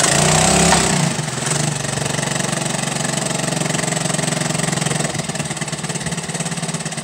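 Honda air-cooled four-stroke outboard catching from a pull start on full choke with a little throttle. It comes in loud and high, its revs dropping back over about the first second, then runs steadily.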